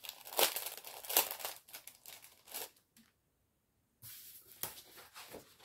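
Thin plastic packaging crinkling and tearing as a cutting die is taken out of its packet, in a run of short rustles. About a second of quiet follows, then softer rustling.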